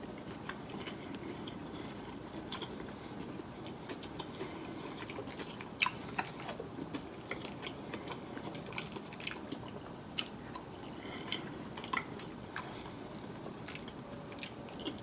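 Quiet close-miked chewing of a mouthful of steak and creamed spinach, with soft wet mouth sounds and scattered small clicks and smacks.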